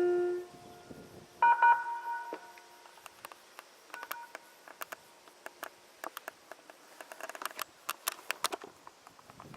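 Outdoor disaster-prevention loudspeaker chime at noon: the melody's last held note cuts off, and about a second later a short two-note electronic tone sounds and rings on, with a faint repeat a couple of seconds after. Faint scattered clicks follow.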